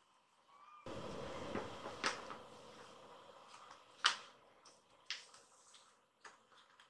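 Thumps, scuffs and rustles of a kitten pouncing and batting at a plush cat toy on tatami mats. A burst of rustling comes about a second in and fades away, and several sharp knocks follow, the loudest about four seconds in.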